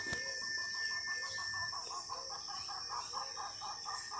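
Rainforest wildlife: a steady high insect drone under a fast, even run of repeated animal calls, with lower clucking notes about every half second.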